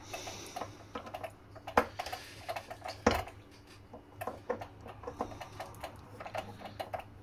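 Small irregular clicks and taps of a screwdriver and hands working on the radar scanner's plastic antenna drive gear, with two sharper knocks about two and three seconds in.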